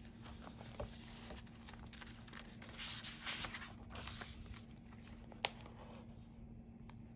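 Paper rustling and swishing as a thick handmade junk journal page, layered with tucked-in cards and paper ephemera, is handled and turned, with one sharp tap about five and a half seconds in. A faint steady hum sits underneath.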